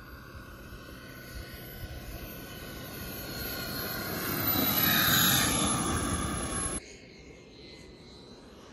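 Radio-controlled model airplane's motor and propeller coming in to land, growing louder as it passes close, with a slight drop in pitch after it peaks about five seconds in. The sound cuts off suddenly about seven seconds in, leaving a quieter, steady sound of another model flying further off.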